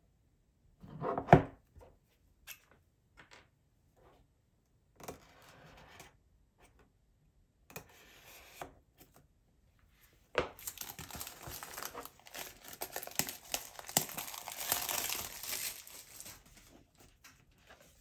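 Cardboard product packaging being handled and opened: one sharp knock about a second in, scattered light taps and rustles, then from about ten seconds in several seconds of crinkling and tearing as the wrapping comes off the box.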